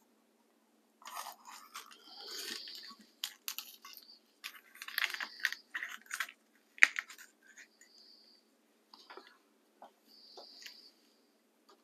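A cleaver cutting a banana pepper on a wooden chopping board: crisp cuts through the pepper's flesh, scrapes of the blade working out the seeds and knocks of the blade on the board at irregular intervals, with one sharper knock about seven seconds in.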